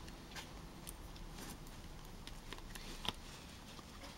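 Scattered small clicks and ticks as fingers flex a silicone mould and press on cured orgonite pieces to pop them out. The sharpest click comes about three seconds in.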